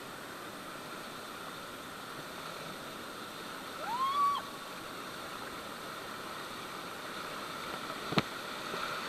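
Steady rush of river water, heard from a raft. About four seconds in there is a short rising call that levels off, and near the end a single sharp knock.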